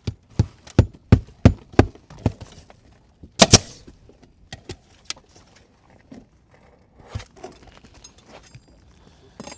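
Hammer blows on the roof, a quick run of about six strikes, then a louder double knock, followed by scattered lighter taps and metallic clinks as the aluminium step flashing is fastened.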